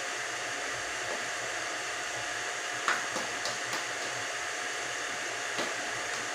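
Steady rushing background noise, like a running fan or air flow, with a faint steady tone in it. A few faint short clicks and taps, the clearest about three seconds in.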